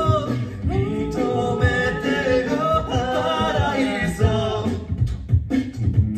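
A six-voice a cappella group singing in close harmony, with vocal percussion keeping a steady low beat underneath. The upper voices thin out briefly about five seconds in while the beat carries on.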